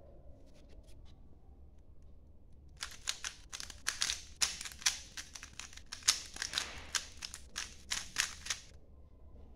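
Layers of a 3×3 speed cube being turned quickly by hand: a rapid run of sharp plastic clicks and clacks that starts about three seconds in and stops shortly before the end.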